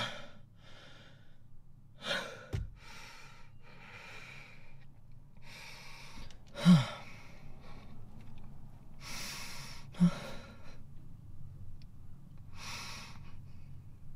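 A young man crying: long, shaky breaths in and out, broken by a few short sobs that drop in pitch, the loudest about two thirds of the way through. A single soft knock a couple of seconds in.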